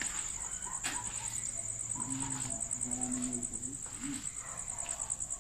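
Crickets trilling: a high, rapid, continuous pulsing trill that holds steady throughout.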